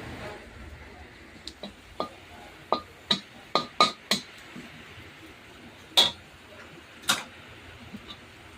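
Kitchen utensils clinking and tapping against dishes in sharp, irregular strikes, about a dozen of them, with a cluster between two and four seconds in and the loudest two around six and seven seconds in.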